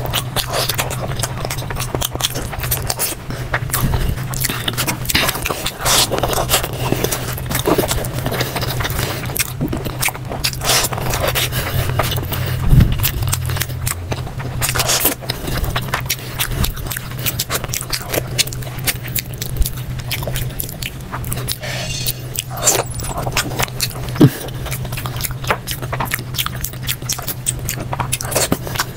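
Close-miked eating sounds: fingers squeezing and mixing rice with curry, and wet smacking and chewing as handfuls go into the mouth, a dense run of small clicks and crackles. A steady low hum runs underneath.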